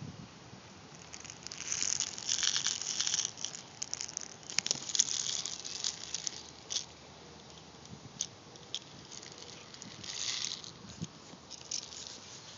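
Plastic airsoft BBs poured from a plastic bottle into a spring pistol's magazine: three bursts of fine, high rattling and clicking, with scattered single clicks between.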